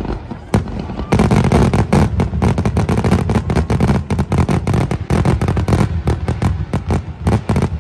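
Aerial fireworks going off: one sharp bang, then from about a second in a dense, rapid barrage of booms and crackling cracks over a continuous low rumble.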